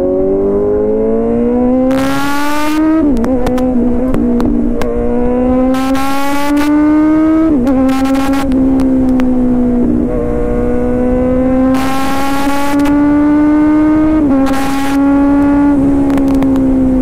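Kawasaki Z900's inline-four engine pulling hard under acceleration, its pitch climbing through each gear and dropping sharply at three upshifts. Several short bursts of rushing wind noise come and go over the engine.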